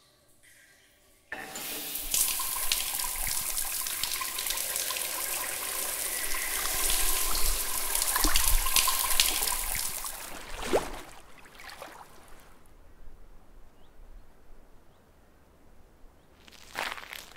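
Overhead shower turned on with a sudden burst, spraying water hard onto a tiled floor for several seconds before fading away.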